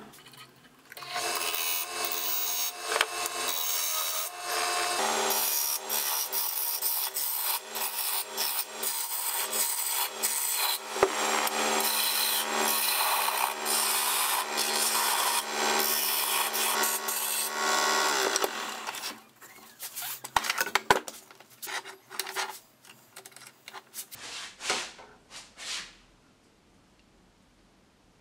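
Wood lathe spinning a wooden blank while a hand-held turning gouge cuts it: a continuous scraping hiss of shavings over the lathe's steady hum. About two-thirds of the way through the cutting stops, leaving a few scattered knocks and then near silence.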